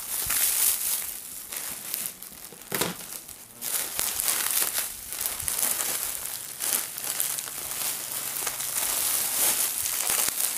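Plastic parcel wrapping crinkling and rustling irregularly as it is handled and opened, with a short lull a few seconds in.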